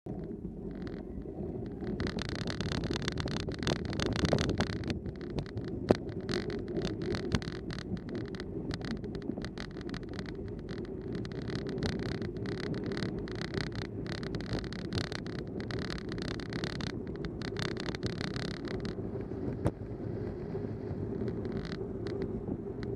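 Wind buffeting the microphone of a camera mounted on a moving bicycle, over the bike's rolling noise. A brighter, rapidly flickering hiss comes in about two seconds in and fades out a few seconds before the end.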